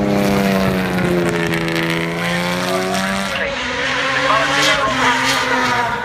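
Racing car engines running past at speed. One engine note holds and bends in pitch, then fades about three seconds in. A second race car, a Mazda RX-7 with a rotary engine, takes over, accelerating with a shifting engine note and a few sharp cracks.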